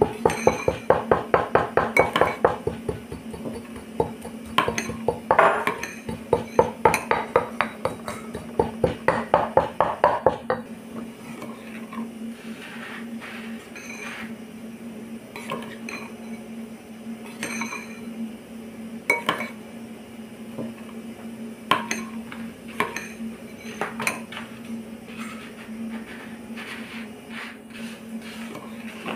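Granite mortar and pestle pounding a wet paste in fast, even strokes, about five a second, stopping about ten seconds in; after that only scattered clinks and taps of stone and utensils.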